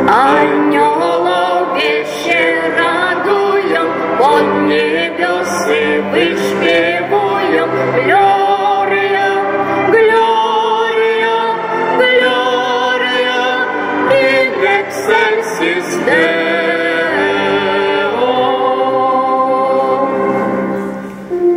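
Singing of a Polish Christmas carol (kolęda), accompanied by a small string ensemble of violins and cello with keyboard.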